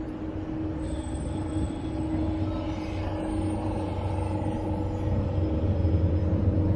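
Road traffic on a city street: a continuous low engine rumble with a steady hum. Two faint high whines come and go, about a second in and again around the middle, and the rumble grows louder near the end.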